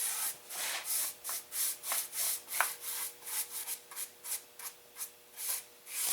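Wood stain being rubbed onto a white pine board in quick back-and-forth strokes, about two to three hissing swipes a second, fading to softer strokes past the middle.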